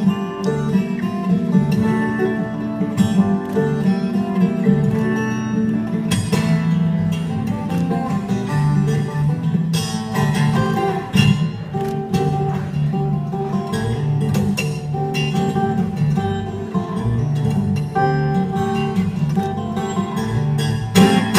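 Solo steel-string acoustic guitar played fingerstyle as an instrumental, low bass notes and a higher melody sounding together in a steady, rhythmic run of plucked notes with sharp attacks.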